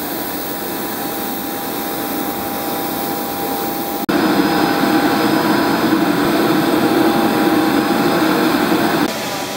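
Steady whine and rush of a turboprop airliner's engine running on the apron. It gets louder suddenly about four seconds in and drops back near the end.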